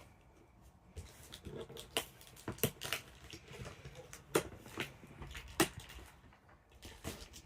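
A doll's cardboard box and packaging being handled and opened: a string of irregular sharp clicks, taps and rustles, the loudest two a little past the middle.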